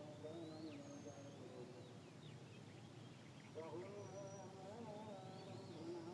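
Faint birdsong: several short rising and falling chirps and a couple of thin high whistles, over faint distant voices.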